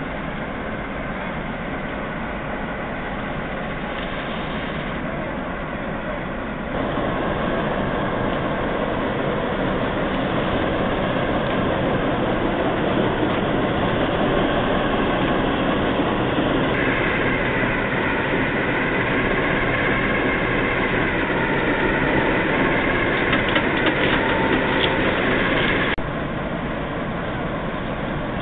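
Class 08 diesel shunter's English Electric six-cylinder engine running as the locomotive moves over newly relaid pointwork, getting louder about a quarter of the way in. A high wavering whine joins about halfway through and cuts off sharply near the end.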